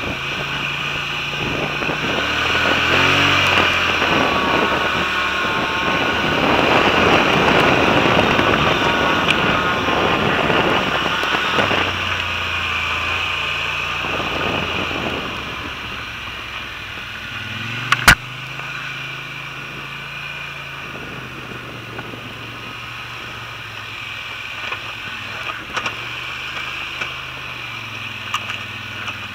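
ATV engine running on a rough dirt trail, its pitch rising and falling with the throttle, with a heavy rush of wind and trail noise that is loudest in the first half. A single sharp knock comes about two-thirds of the way through, and a few light rattles and clicks follow near the end.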